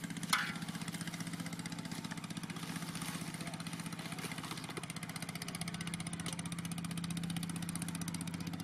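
A small engine running steadily with a fast, even putter. A brief sharp click sounds about a third of a second in.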